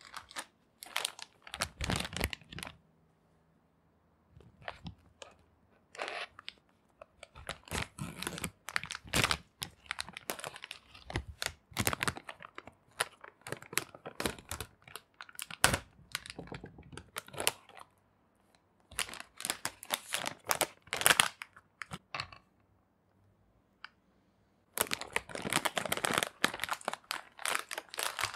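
A plastic packet being torn open and crinkled by hand, in repeated bursts of rustling with short pauses.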